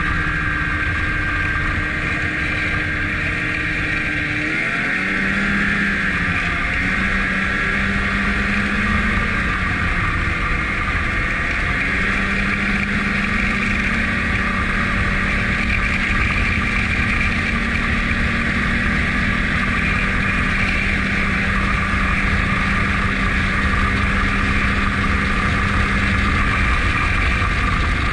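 Snowmobile engine and track running steadily under way. The engine pitch rises about five seconds in as it speeds up, then holds steady.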